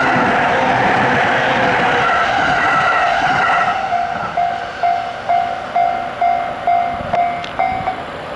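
A 15-car E231 series electric train running past on the rails, a loud noisy rumble with a wavering squeal that dies away after about four seconds. This leaves the level crossing's alarm bell ringing steadily about twice a second, which stops near the end as the crossing clears.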